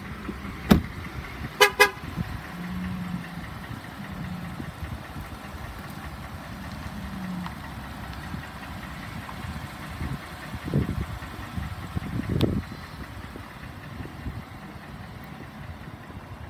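A vehicle door shuts with a sharp knock, and just after it a car horn gives two quick short chirps. After that there is steady outdoor background noise with a couple of soft low thumps.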